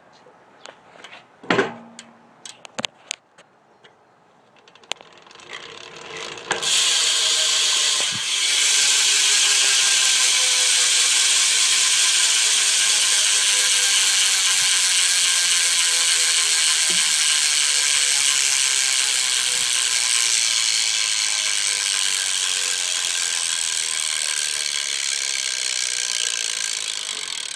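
BMX rear hub's pawls ratcheting loudly as the back wheel is spun and left to coast, the clicking slowly slowing down. A few knocks come first as the wheel is handled, and the ratcheting starts about six seconds in.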